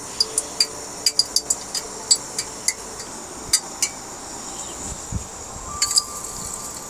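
A metal spoon clinking against a stainless steel bowl while coating a potato vada in gram-flour batter: a dozen or so short, ringing taps at irregular spacing, with a quick cluster near the end.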